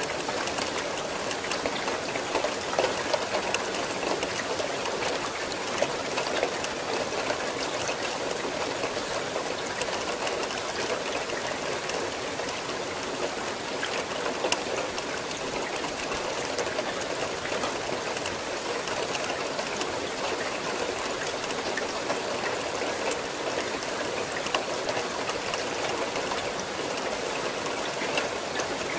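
Steady rain falling: an even hiss with many individual drop hits ticking out of it.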